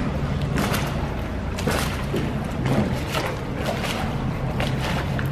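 Canal water splashing and lapping against a gondola's wooden hull as it is rowed along, in many short irregular splashes over a steady low hum.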